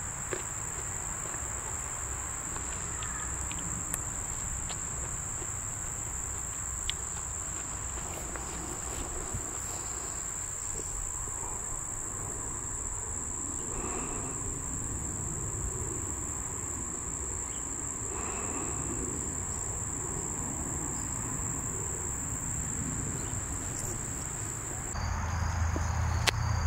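Crickets trilling steadily at one high pitch. Near the end the trill shifts and a low rumble comes in.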